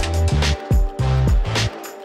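Background music with a steady beat and a heavy bass line; the bass drops out briefly near the end.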